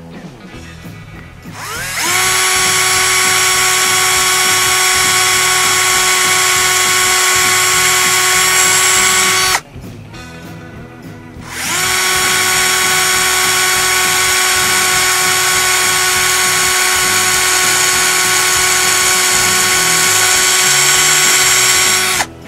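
Compact cordless drill drilling pilot holes through a rub rail end cap in two long runs. Each run spins up with a rising whine, then holds a steady high whine: the first lasts about seven and a half seconds, and after a short pause the second lasts about ten and a half.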